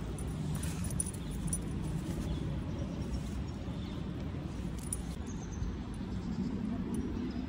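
Steady low rumble of a wet city street in light rain, with a few faint high ticks in the first second or so and again about five seconds in.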